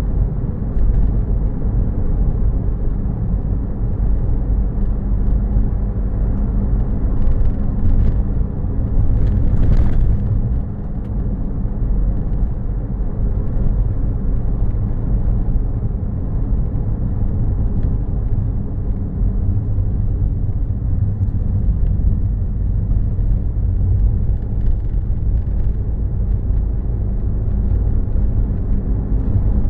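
A car driving, heard through an in-car camera: steady engine and tyre rumble on the road, with a short, sharper noise about ten seconds in.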